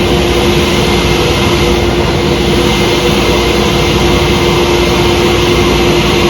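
Table saw running steadily with a constant whine while cutting a sheet of plastic laminate.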